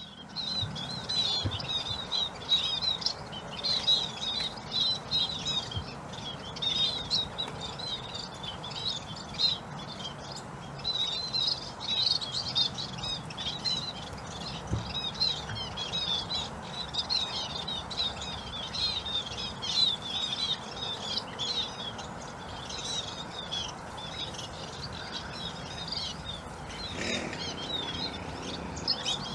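A flock of munias chirping steadily: many short, high twittering calls overlapping throughout, over a faint steady background hiss.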